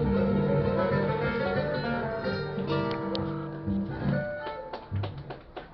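Acoustic guitar music closing on held final notes that fade out, then clapping begins about four and a half seconds in.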